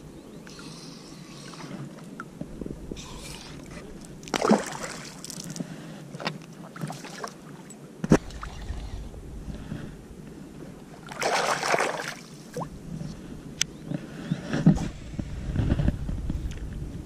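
Shallow water sloshing and splashing around a wading angler, louder in two bursts about four and eleven seconds in, with a couple of sharp knocks.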